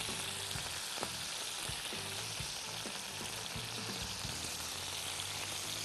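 Beef chunks and onion sizzling steadily as they brown in hot oil in a cast-iron pot, with a few light clicks of tongs turning the meat.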